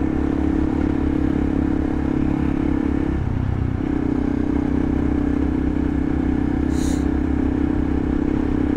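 Honda Monkey's small single-cylinder engine running steadily on the move, heard from the rider's seat with wind noise over it. The engine note briefly breaks a little past three seconds in, then picks up again.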